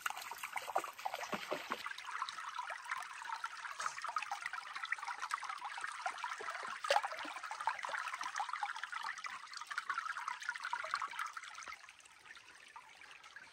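A shallow rocky creek trickling and babbling over stones, a steady stream sound full of small gurgles, with one sharper click about seven seconds in. It grows quieter near the end.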